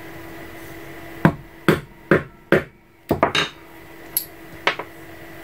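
Wooden mallet tapping a metal alphabet letter stamp into dampened leather: a run of about seven sharp taps, the last few in quick succession, then two lighter knocks.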